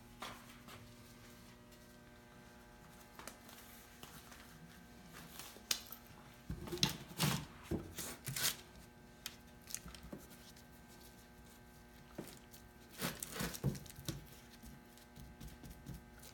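Small brush dabbing and scraping wood glue across wooden boards, with scattered taps and knocks as the boards and tools are handled, in two busier spells partway through. A faint steady hum runs underneath.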